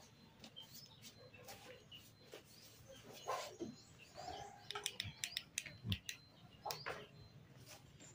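Crinkling of a foil pouch and light clicks and taps of a small plastic bottle and cup being handled, mixed with faint, brief high chirps. The clicks come thickest about halfway through.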